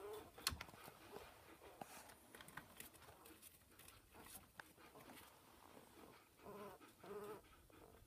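A baby squirrel calling with short, repeated pitched cries: one right at the start and two close together near the end, with scattered sharp clicks in between.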